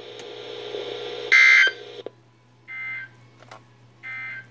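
Emergency Alert System end-of-message data tones: three short bursts of digital warble about 1.4 seconds apart, the first the loudest, over steady radio hiss and hum. They mark the end of the warning broadcast.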